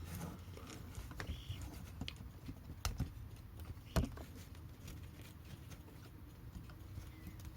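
A few scattered light clicks and taps, the clearest about three and four seconds in, from small clock parts and tweezers being handled on a workbench, over a low steady hum.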